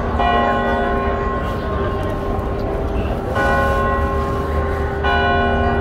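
A bell struck three times, slowly, each stroke ringing on for over a second, over a steady low rumble.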